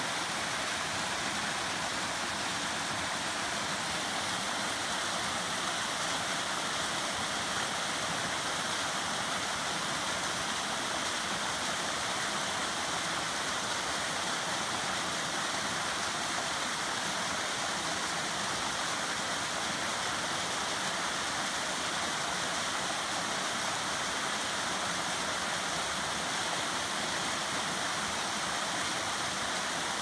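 Small waterfall cascading down a rocky streambed: a steady rush of falling water, bright and hissy with little deep rumble.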